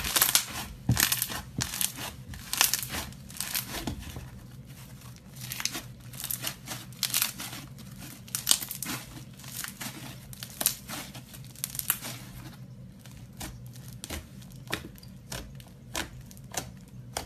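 Slushy slime being squeezed and kneaded by hand, crackling and popping in irregular bursts that thin out in the last few seconds, over a faint low hum.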